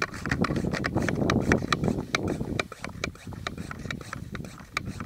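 Hand pump-up garden sprayer being pumped to build pressure: the plunger strokes make a quick, regular clicking. A low rushing noise runs under the first half and fades about two and a half seconds in.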